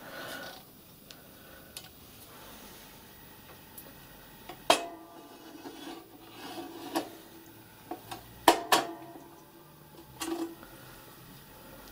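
Home-made steel firebox removal tool being worked into a miniature live-steam locomotive's firebox, metal scraping and clanking against metal. There is a sharp clank a little before halfway and two close together about three-quarters through, the loudest, with lighter clinks and rubbing between.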